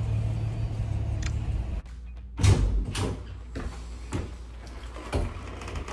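A car's cabin rumbles low and steady for about the first two seconds, then cuts off. In a small room a single thump follows, then several lighter knocks and clicks of something being handled.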